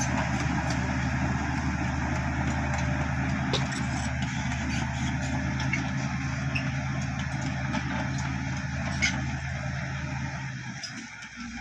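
Bulldozer's diesel engine running steadily with an even low drone, fading away near the end.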